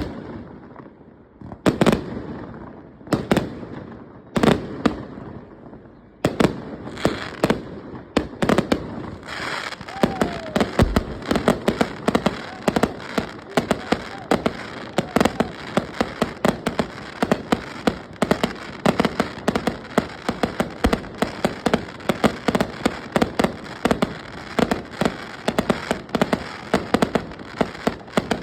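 Fireworks display going off. Separate loud bangs come about once a second at first, then grow more frequent from about six seconds in, and from about nine seconds they run together into a dense, continuous rapid crackle of many reports a second.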